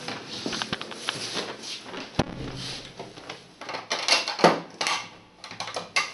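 A door being handled: irregular knocks and clatter, with a sharp knock about two seconds in and louder rustling scrapes around four to five seconds in.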